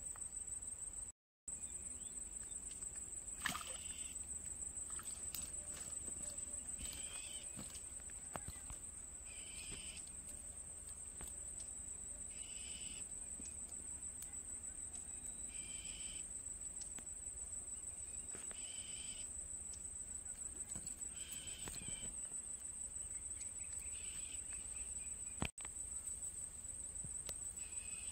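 Crickets trilling steadily at a high pitch, with a shorter call repeating about every three seconds.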